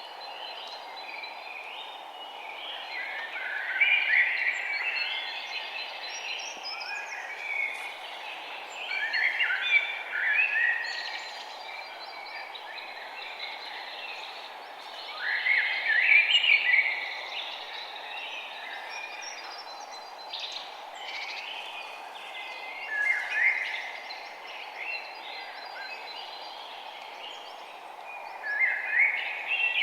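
Songbirds chirping and singing in short, busy phrases that come every few seconds, over a steady background hiss.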